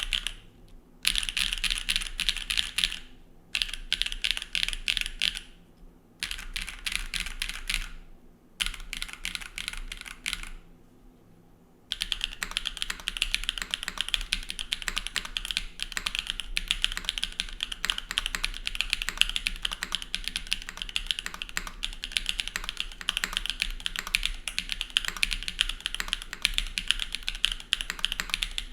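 Typing on a TYP60 SL O-ring-mounted mechanical keyboard with an aluminium plate, stock SWK Catmint switches and GMK keycaps. The keystrokes come in quick runs broken by short pauses. After a brief lull about twelve seconds in, the typing runs on without a break.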